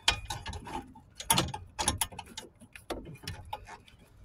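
Irregular plastic clicks and knocks of wiring-harness connectors and a mounting bracket being handled and fitted at a Nissan Murano's transmission control module, the strongest about a second and a half and two seconds in.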